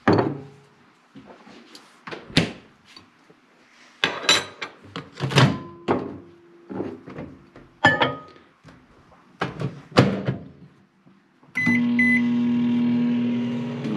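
Knocks and clatter as a bowl is set into a countertop microwave oven and its door is shut, then two short beeps as it is started, and the microwave running with a steady hum for the last couple of seconds.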